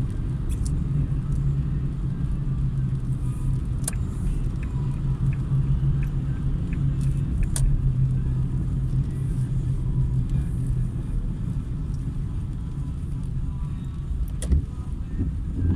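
Car driving along a wet road: a steady low rumble of engine and tyre noise, with a few faint sharp clicks.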